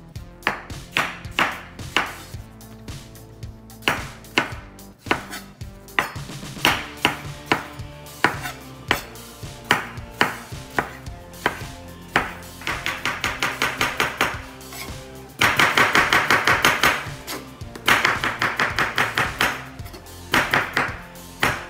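Chef's knife chopping tomato and then cucumber on a wooden cutting board: separate single cuts at first, then quick even runs of about five or six strokes a second through the second half.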